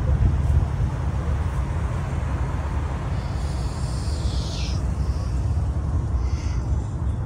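Steady low rumble of vehicle engines running, with a brief high whistle about three and a half seconds in that falls in pitch at its end, and a shorter one near six seconds.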